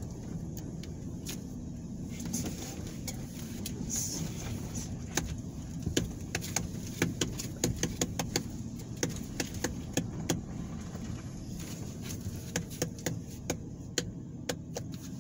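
Car moving slowly, heard from inside the cabin as a steady low rumble, with many irregular sharp clicks through the middle stretch.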